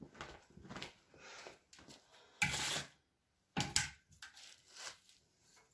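Footsteps scuffing through dry grass, then split pieces of pine lighter wood (resin-rich heartwood) put down with a sharp clatter about halfway through and a heavier wooden knock a second later.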